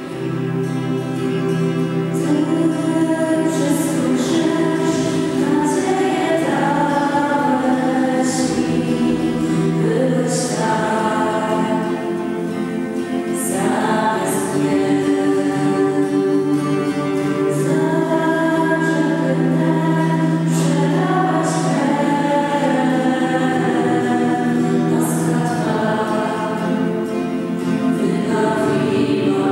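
Choir singing a slow hymn, with notes held for seconds over steady low accompaniment chords.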